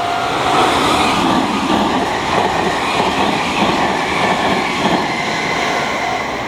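Meitetsu 1700 series electric train passing through a level crossing at speed: a loud rush of wheels on rail with repeated knocks, easing near the end as the train clears. The crossing's warning bell keeps ringing faintly under it.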